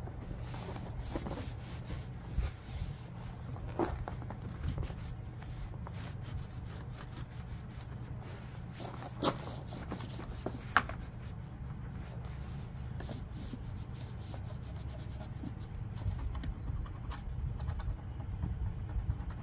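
A towel rubbing and wiping over the housing of a Honda EU1000i generator, drying it after a wash, in uneven scratchy strokes. Two sharper clicks come about a second and a half apart, near the middle. A steady low rumble runs underneath.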